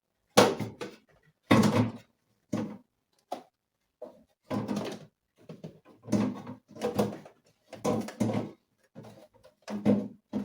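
Fridge drawers, doors and plastic containers being handled while a fridge is rearranged: a series of about nine short knocks, scrapes and rattles.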